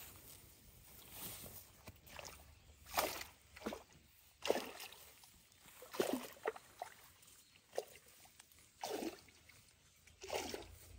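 Water sloshing and splashing at the pond's edge in short, irregular bursts, about eight in all from about three seconds in, as a fish and its mesh net bag are handled in the shallows.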